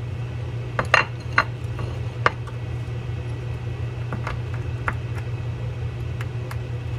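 A metal pick clicking and scraping against a spinning-reel spool and its retention C-clip as the clip is pried out. Several sharp clicks come close together in the first couple of seconds, then a few fainter ones.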